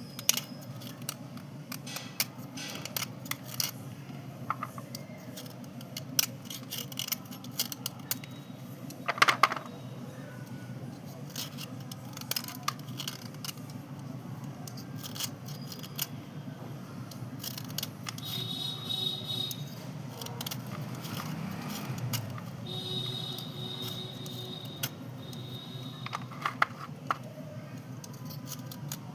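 Light clicks, taps and scraping of dry white slate pencils and chalk pieces being handled and cleaned, over a steady low hum. Two brief high tones come about two-thirds of the way in.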